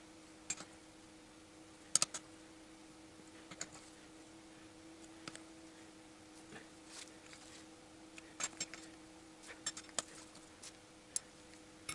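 Scattered sharp metal clicks, about a dozen, some doubled, from a torque wrench and socket tightening the camshaft carrier nuts on a VAZ 2111 8-valve cylinder head to 20 N·m; the loudest is a double click about two seconds in. A faint steady hum runs underneath.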